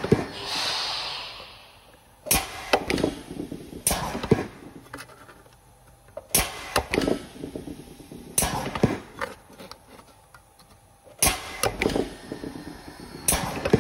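TOX pneumohydraulic clinching unit punching clinch joints into overlapping sheet-metal strips: a sharp metallic clack with a short rattle at each stroke, roughly every two seconds. Compressed air hisses out for about two seconds after the first stroke.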